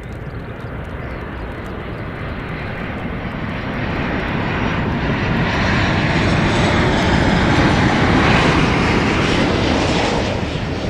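Airliner engines passing close, a rushing roar that builds over several seconds, peaks about eight seconds in, then falls away near the end.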